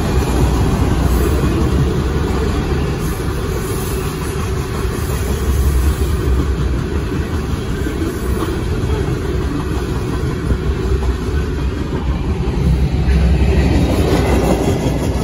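Freight cars of a passing CSX mixed freight train rolling by, steel wheels running on the rails in a steady rumble that swells and dips.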